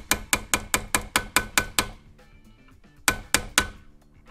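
Light, rapid hammer taps on a pin punch, driving the roll pin that holds the front sight into a CZ75 pistol slide as it nears full seating. The taps come about four to five a second for nearly two seconds, stop for about a second, then a quick run of four more.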